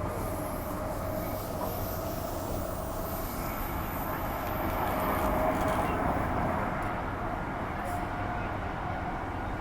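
Running noise inside a Transperth A-series electric multiple unit in motion: a steady rumble with a faint high whine that stops about halfway through.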